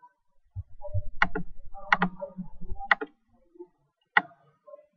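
Computer mouse clicks, about five spread over a few seconds, including a quick double click about two seconds in, over a low dull rumble.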